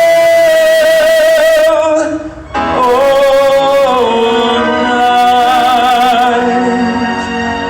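Christmas music: a singer holding long notes with vibrato over accompaniment, with a brief break about two and a half seconds in before the next phrase.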